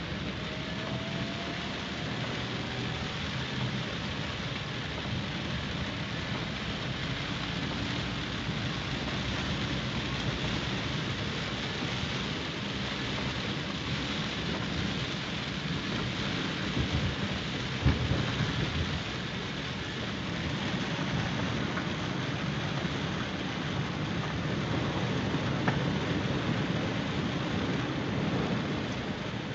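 Monsoon-fed roadside waterfall: a steady roar of rushing, falling water, with a couple of brief low thumps a little past halfway.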